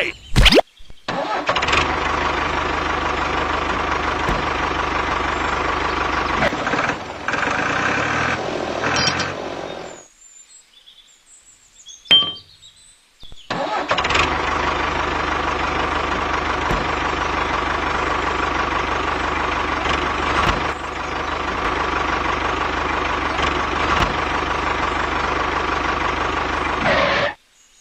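Tractor engine starting and running steadily. It cuts off about ten seconds in, with a click during the quiet, then starts again a few seconds later and runs until just before the end.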